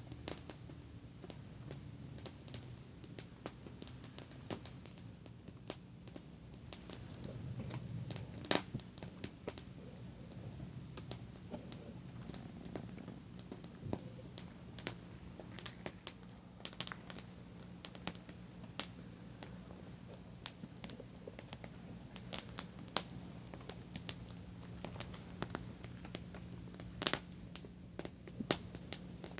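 Small wood campfire crackling: sharp, irregular pops and snaps of burning wood, one or two a second, with a louder pop about a third of the way in and another near the end.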